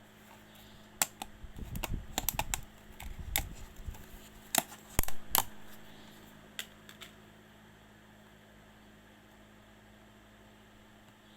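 A quick run of light clicks and taps, loudest about halfway through, that stops after about seven seconds, leaving a steady low hum.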